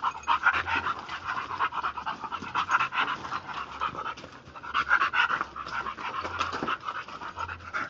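A dog panting rapidly and rhythmically, short quick breaths in and out through the open mouth.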